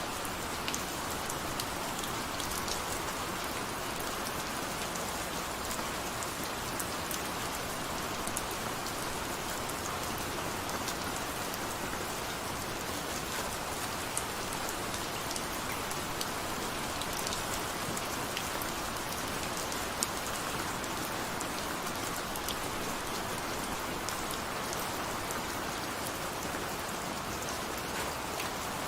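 Steady rain, with many individual drops ticking on a hard surface over a constant hiss.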